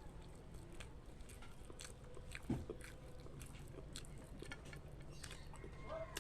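A person eating: biting and chewing, with scattered small clicks and crunches and one louder knock about two and a half seconds in.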